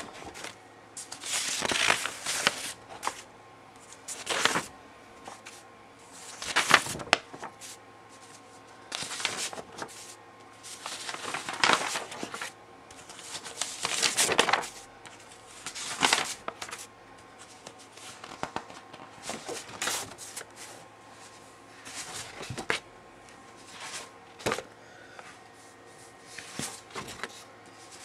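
Sheets of painted paper rustling and rubbing as they are handled and turned, in repeated short bursts every second or two.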